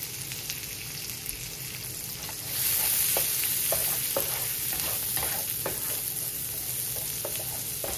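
Diced onions and jalapeños sizzling in hot bacon grease in a nonstick skillet, stirred with a wooden spatula that knocks and scrapes against the pan now and then. The sizzle gets louder about two and a half seconds in.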